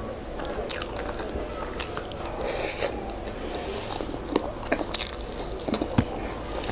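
Close-up eating sounds of a person chewing a mouthful of yam and owo stew, with short mouth clicks at irregular intervals.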